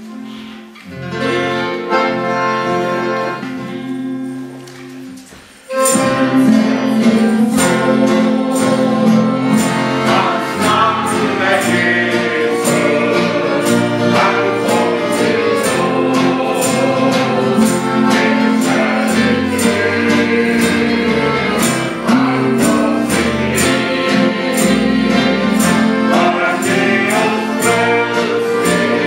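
Live gospel song with two accordions, acoustic guitars and a group of singers. The accordions play a soft introduction of held chords, then about six seconds in the guitars start a steady strum and the voices come in together, louder.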